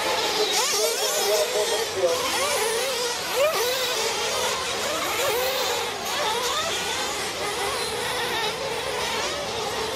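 Several 1/8-scale nitro RC truggy engines racing, a high buzz that keeps rising and falling in pitch as the trucks accelerate and back off.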